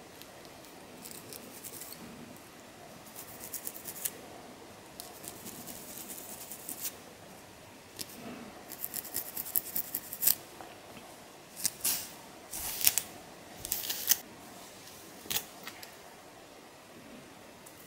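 Long fingernails scratching through hair on a dandruff-flaked scalp: clusters of quick, dry, high-pitched scratching strokes with short pauses between, the loudest run about two-thirds of the way through.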